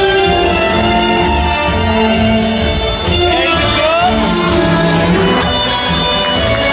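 Ballroom tango music playing loudly, with held melody notes over a steady, pulsing beat.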